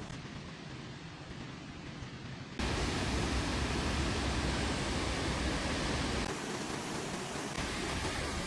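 Chania Falls waterfall: a steady rush of falling water that jumps abruptly louder about two and a half seconds in, then dips briefly before steadying again.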